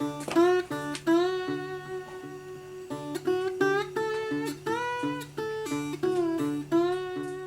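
Background music: a plucked guitar-like string instrument playing a melody of single notes that slide and bend in pitch, over a repeating low bass line.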